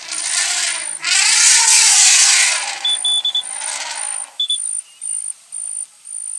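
An African elephant gives a loud, harsh trumpeting call about a second in, lasting about a second and a half.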